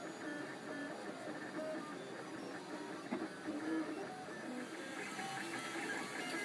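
MakerBot dual-extruder 3D printer at work: its stepper motors whine in short tones that jump in pitch every fraction of a second as the print head moves, over a steady mechanical hum.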